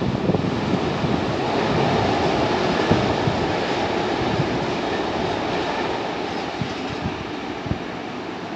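Empty freight train rolling away, its wheel rumble fading steadily, with a few sharp clicks as the wheels cross rail joints.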